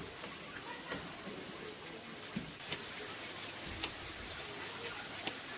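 Faint, scattered sharp clicks, about six at irregular intervals, from hand weaving at a wooden handloom as the weaver works coloured design yarn into the warp with her fingers and a small tool.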